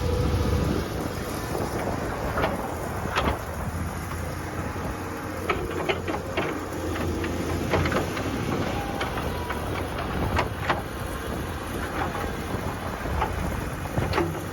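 Heavy machinery's engine running steadily, with irregular metallic knocks and clanks over it.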